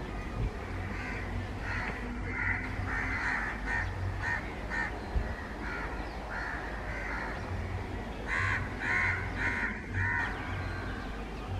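Crows cawing again and again, with a run of louder caws about eight seconds in, over a steady low rumble.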